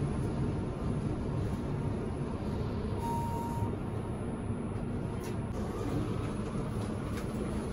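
Inside a Hyundai passenger elevator car: a steady low rumble from the car, with one short beep about three seconds in.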